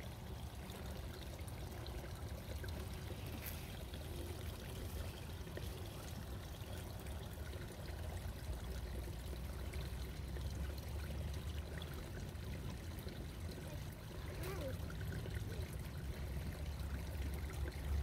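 Shallow woodland stream trickling steadily over stones and leaves, with a steady low rumble underneath.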